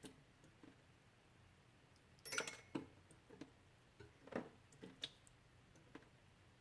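Melting ice dripping: faint, irregular drips and ticks of water, a handful over a few seconds, the loudest a quick cluster about two seconds in.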